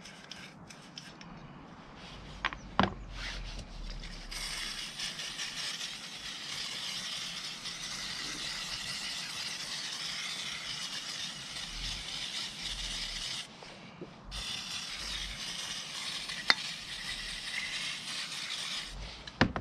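Aerosol brake cleaner spraying onto a motorbike brake caliper, cleaning off grime. It hisses steadily in two long sprays: about nine seconds, a short break, then about five seconds. A couple of sharp metal clinks come before and during the spraying.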